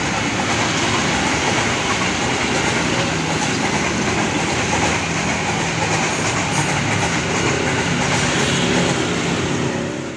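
Ex-JR East 205 series electric multiple unit (KRL Commuter Line) passing along a railway viaduct overhead, its wheels and running gear making a steady loud noise on the rails, fading out at the very end.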